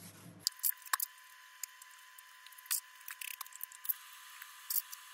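Faint, thin-sounding sped-up sound of a cloth wiping down RC truck body panels with isopropyl alcohol: scattered small ticks, squeaks and brief rubbing scrapes over a steady faint hum, with no low end from about half a second in.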